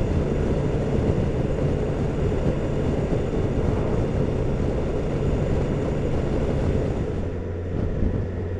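BMW K1600's inline-six engine running on the move under a steady rush of riding noise. About seven seconds in, the engine note drops lower and steadier as the bike eases off.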